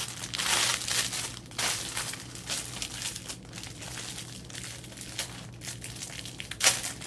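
Clear plastic packaging bag crinkling and rustling as hands work it open, in irregular crackles, with one sharper, louder crackle near the end.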